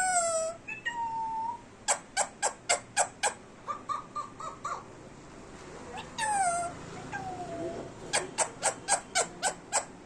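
Indian Ringneck parrot calling: a loud call falling in pitch at the start and again about six seconds in, short whistled notes, and two quick runs of sharp chirps at about four to five a second.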